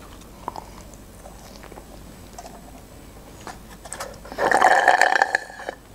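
Faint chewing of French fries, then, a little over four seconds in, a loud slurp of about a second and a half as the last of a cola is sucked up through a plastic straw from a paper cup.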